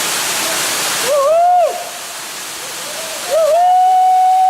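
Rushing waterfall, broken by two loud, high hoot-like calls. The first, about a second in, is short and rises then falls. The second, starting past the middle, is long and held at one pitch.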